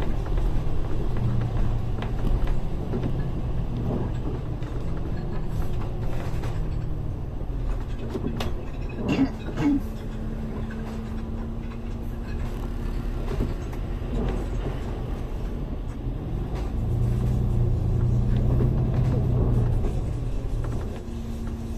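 Low engine and road rumble heard inside a moving double-decker bus. A steady hum sets in about eight seconds in, and a few short sharp sounds come around nine seconds.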